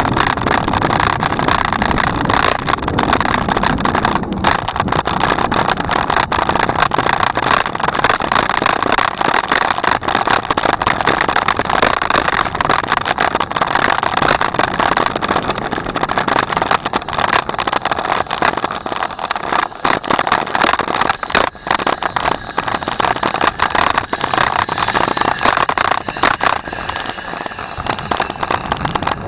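Steady rushing wind and tyre noise from a bicycle being ridden, with a constant fine rattling and crackling.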